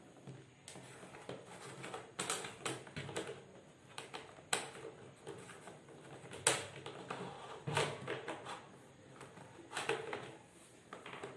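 Irregular light clicks and rustles of insulated electrical wire being pulled through PVC conduit and handled in plastic mounting boxes.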